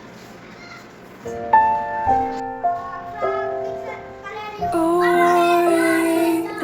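Children's song playing: a few held keyboard notes, then voices come in singing, louder, about two-thirds of the way through.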